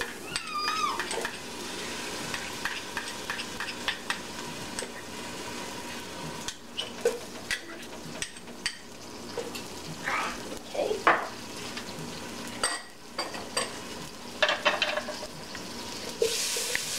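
Butter, minced garlic and coconut oil sizzling in a stainless steel pot, with a spoon clicking against the glass dishes and the pot as the ingredients go in and are stirred.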